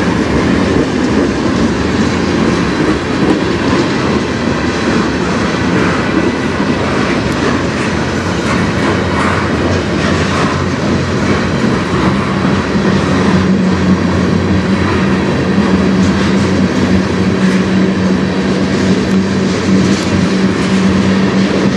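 Covered hoppers and tank cars of a freight train rolling past at speed: a steady din of steel wheels on rail with clicking over the rail joints, and a steady low hum coming in about halfway through.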